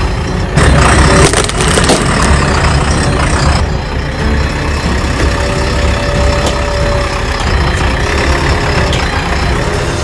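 The four-cylinder diesel engine of a JCB 3DX Xpert backhoe loader running as the machine rolls slowly forward. About a second in, a louder crunching burst as a tyre goes over a coconut.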